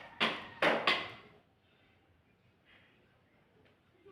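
A person sneezing: three sharp bursts close together about a quarter of a second in, the last ending around a second in.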